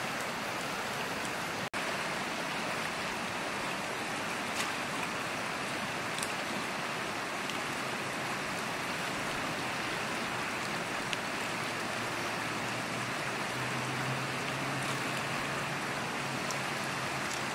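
Steady rushing noise, like running water, with a few faint ticks; a faint low hum comes in near the end.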